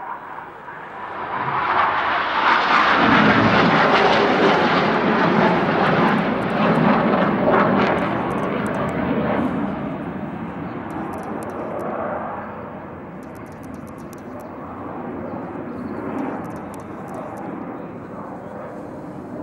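Formation of Red Arrows BAE Hawk T1 jets, single Adour turbofan each, passing over with a rushing jet roar that swells about a second in, stays loud for several seconds, then slowly fades as they pull away.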